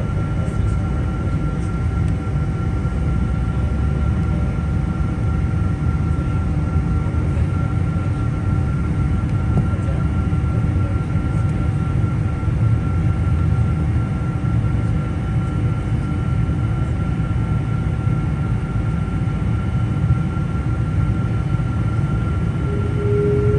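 Cabin noise of a Boeing 777-200ER heard at the wing: its Rolls-Royce Trent 892 engines idling on the ground, a steady low rumble with a few steady whining tones. Near the end a new tone comes in and rises slightly.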